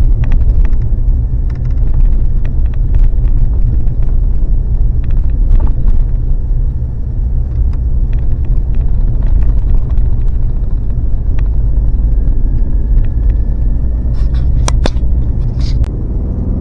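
Vehicle driving on a rough back road, heard from inside: a steady low road rumble with scattered small rattles and knocks, and a few sharper clicks near the end.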